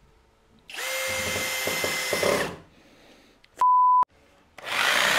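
Cordless drill running for about two seconds, starting just under a second in, driving a screw into a pine 2x4 boat frame. A short, loud, steady beep follows about three and a half seconds in, and near the end a power saw starts cutting through the lumber.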